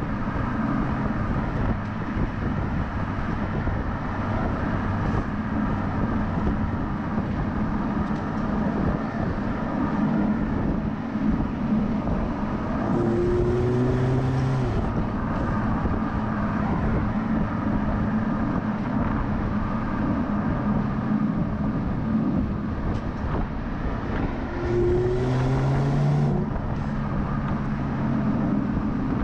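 BMW 330e's turbocharged four-cylinder petrol engine running under way, mixed with road noise. The engine note swells briefly twice, once about halfway through and again near the end.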